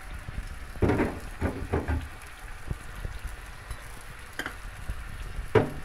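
Fish curry sizzling in a steel karahi on a gas burner, with sharp metal clanks and scrapes as the pan is shifted on the burner grate: a cluster of them about a second in, and single knocks later, the loudest near the end.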